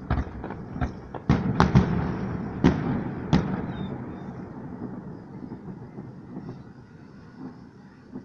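Aerial fireworks shells bursting: a quick run of about eight sharp bangs in the first three and a half seconds, then a rumble that fades away, with only faint pops near the end.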